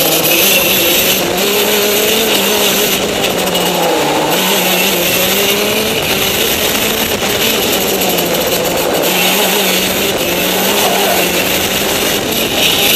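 Racing kart engine heard from on board at speed, its pitch rising and falling several times as the driver accelerates and lifts off for the corners, over a steady hiss.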